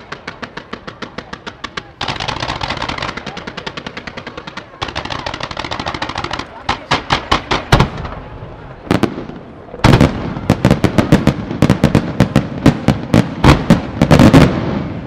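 Fireworks display. Fanned volleys of comets from multi-shot batteries give a fast, even string of pops for the first six seconds or so. After that come louder separate bangs, several a second, as aerial shells burst, and these are heaviest near the end.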